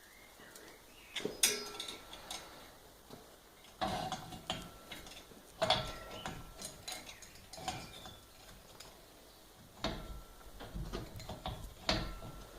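Irregular metal clinks and knocks of parts being handled and set down, a few of them ringing briefly.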